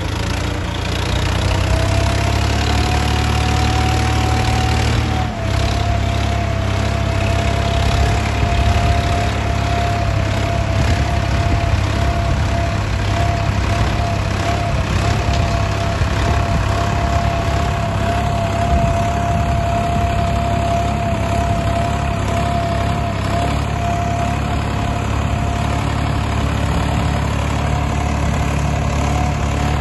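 Swaraj 963 FE tractor's diesel engine running steadily while working a field with a mounted plough, with a steady whine over the engine note. The whine climbs over the first few seconds and the sound shifts abruptly about five seconds in.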